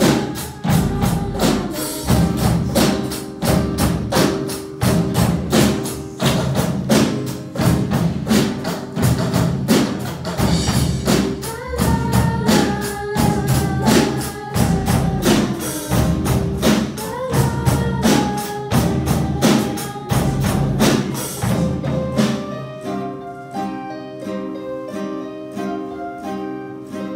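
A live children's band playing a song on drum kit, hand percussion and acoustic guitar, with a steady beat. About 21 seconds in the drums stop and the acoustic guitar carries on alone with plucked notes.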